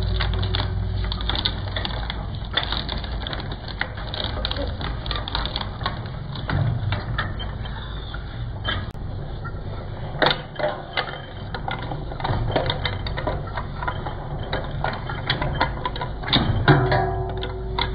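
Twin-shaft shredder running, its cutter discs crunching and clicking as they chew through cable and small scraps over the steady hum of the motor. There are sharper cracks about ten seconds in and again near the end.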